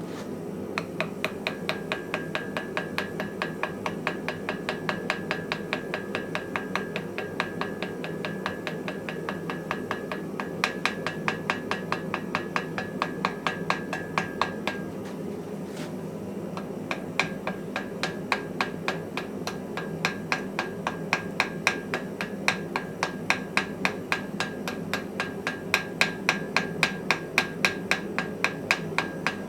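Hammer blows on hot iron at an anvil during hand forging: a steady rhythm of about three strikes a second with a ringing tone. The blows pause briefly about halfway through and then resume. A steady low rush runs underneath.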